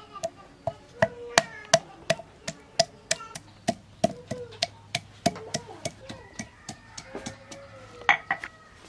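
Stone pestle pounding peeled ginger on a wooden chopping board: quick, uneven knocks, about three a second.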